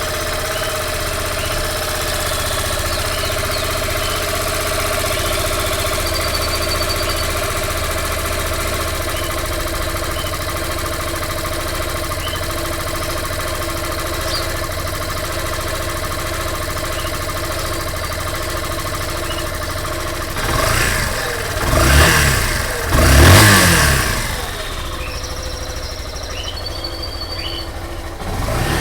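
Yamaha Fazer 150's single-cylinder engine idling steadily, then revved three times in quick succession about two-thirds of the way through before settling back to idle, with another rev starting at the very end. It is running on ethanol, and the new owner finds its engine noise strange and is unsure whether it is normal.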